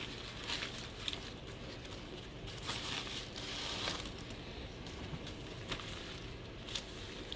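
Plastic zip-top seed bags and paper seed packets crinkling and rustling quietly as they are pulled out of a padded paper mailer and spread out by hand, with a few small clicks.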